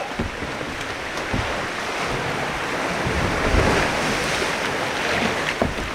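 Ocean surf washing in, building to its loudest about halfway through and then easing, with wind rumbling on the microphone.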